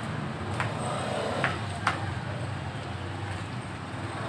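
Honda Scoopy scooter's single-cylinder engine idling with a low steady hum, with three light clicks in the first two seconds.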